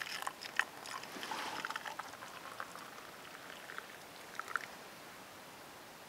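Water being poured from a metal mug into a small metal cup onto a tea bag: a splashing, gurgling trickle that thins out and stops about five seconds in.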